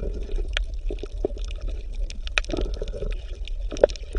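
Water bubbling and gurgling, with many irregular small pops and clicks over a steady low hum.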